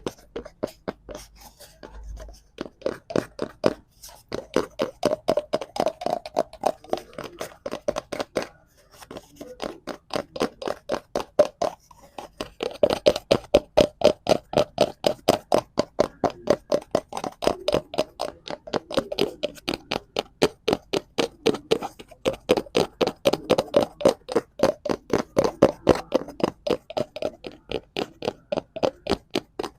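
Fingers tapping rapidly and evenly on a hollow cardboard object, about five taps a second, with a hollow knock to each tap and a few brief pauses in the first nine seconds.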